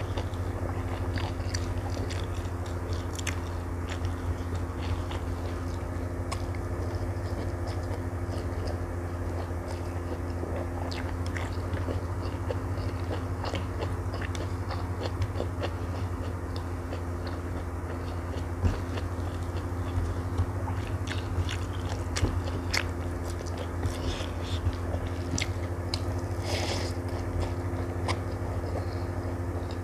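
Close-miked chewing and mouth sounds of a person eating rice with stir-fried water spinach and omelette by hand: many small wet clicks and light crunches over a steady low hum.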